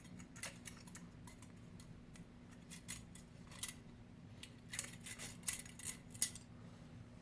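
Light metallic clicks and clinks of small parts being handled: the cooler's mounting screws and wire fan clips are being taken out. A few scattered clicks come first, then a quicker run of clicks near the end.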